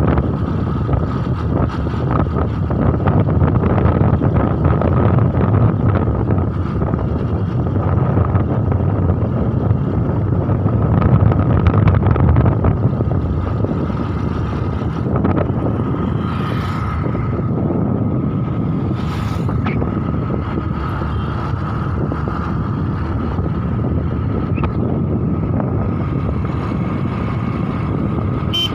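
Wind rushing over the microphone of a camera carried on a moving vehicle, with the steady low noise of the vehicle's engine and tyres on the road.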